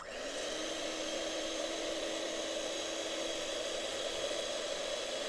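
Electric hand mixer running steadily, its beaters whipping heavy cream in a glass bowl. It starts with a brief rise in pitch as the motor comes up to speed, then holds an even hum.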